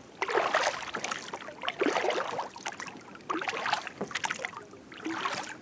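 Oars of an inflatable rubber boat dipping and pulling through lake water: repeated splashing, swishing strokes, roughly one every second or so.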